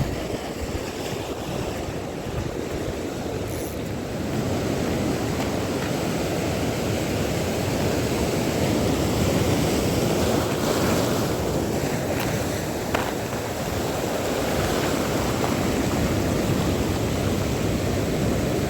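Waves washing and wind buffeting the microphone, a steady rushing noise that grows a little louder a few seconds in.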